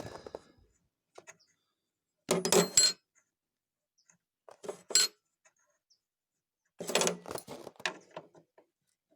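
Metal hand tools and parts clinking and clattering, handled in three short bursts.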